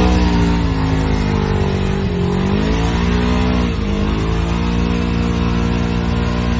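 Side-by-side UTV engine revving hard under load as it ploughs through deep mud, the revs sagging briefly about two seconds in and again near four seconds before climbing back.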